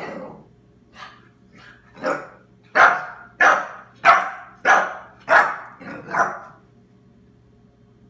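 Seven-week-old puppy barking repeatedly, short sharp barks about one every two-thirds of a second, a couple of faint ones then louder ones, stopping about six and a half seconds in.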